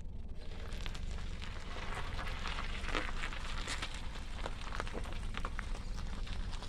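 A small hatchback rolling slowly past over gritty asphalt: crackling tyre noise with many small clicks over a steady low rumble, swelling about three seconds in.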